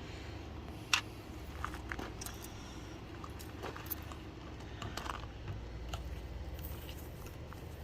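Scattered light clicks and clinks of hand tools being handled, over a faint steady low hum; the sharpest click comes about a second in.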